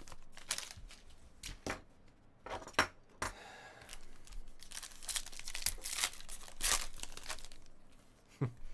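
Trading-card pack wrappers being torn open and crinkled by hand, with cards handled and shuffled: a run of short, sharp rips and crinkles, busiest past the middle.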